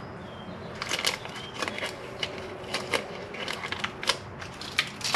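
Light, irregular clicks and rattles of a plastic wiring harness and its clips being handled and moved aside in an engine bay, starting about a second in.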